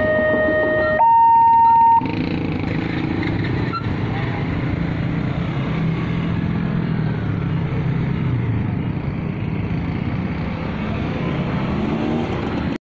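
Railway level-crossing electronic warning siren sounding a low tone, then a high tone, and cutting off about two seconds in. Road traffic follows: motorcycles and cars running past the crossing.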